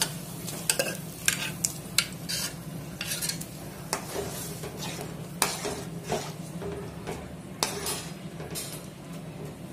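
A metal spoon stirring mashed peas and potato into simmering masala gravy in a metal pan, with irregular scrapes and clinks of the spoon against the pan, over a steady low hum.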